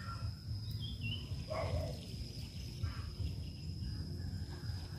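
Outdoor ambience: a steady high insect drone over a low wind rumble, with a short falling bird chirp a little under a second in and a brief animal call about a second and a half in.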